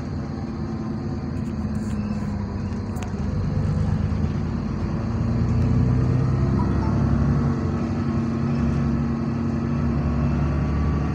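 Double-decker bus engine heard from the lower deck while the bus is under way, with a low, droning moan that grows louder about four to six seconds in. This moan is the weird engine noise the owner is investigating on this bus.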